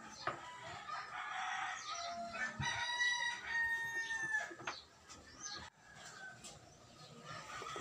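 A rooster crowing once, a single long call in the middle, with clucking just before it.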